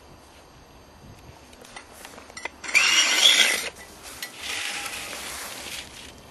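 A tool working a block of ice in two harsh scraping bursts: a loud one about a second long near the middle, then a longer, quieter one.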